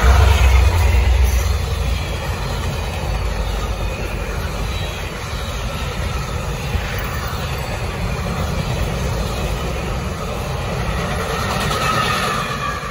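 CSX office car special passing at about 60 mph: the heavy low rumble of its F40-type diesel locomotives fades in the first second or two, then the passenger cars' wheels run past on the rails with a steady rushing rumble.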